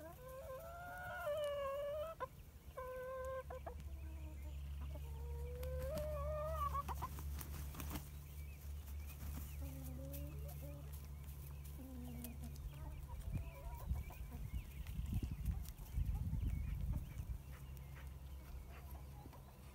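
Barred hens clucking and giving drawn-out, wavering calls in the first several seconds, then a few lower, shorter clucks. A steady low hum runs underneath for much of the time, with low rumbling gusts in the second half.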